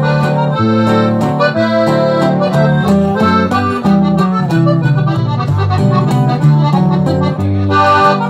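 Accordion playing a quick melodic instrumental break between the sung verses of a Mexican song, over a steady bass line.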